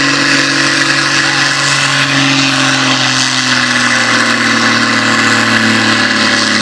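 Tractor diesel engine running hard at high revs under heavy load during a pull, a steady loud drone whose pitch sags slightly over the last few seconds.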